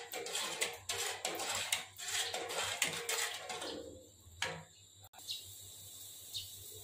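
Metal ladle stirring sugar syrup in an aluminium saucepan, with frequent clinks and scrapes against the pan. The stirring stops about four seconds in, leaving a faint steady hiss.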